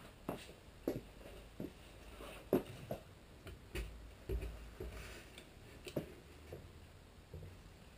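Irregular light clicks and knocks, about one or two a second, of small objects being handled and set down.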